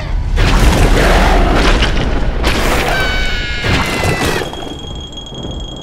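Cartoon sound effects: a loud boom with a long low rumble, then a second crash followed by several high tones gliding slightly downward, and a thin high ringing tone near the end.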